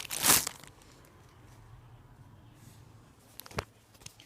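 Plastic bag crinkling for a moment as the shift knob is pulled out of it, then quiet with a faint low hum, broken by one sharp click about three and a half seconds in and a couple of small ticks near the end.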